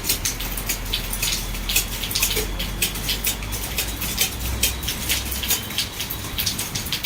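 Computer keyboard typed on at speed: a rapid, irregular run of key clicks, about five or six a second, over a low hum.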